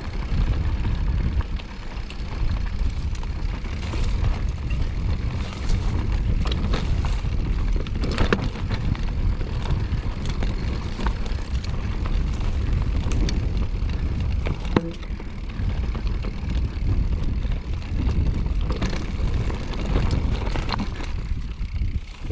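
Wind buffeting the microphone in a steady low rumble while a mountain bike rattles and knocks over rough, rocky trail.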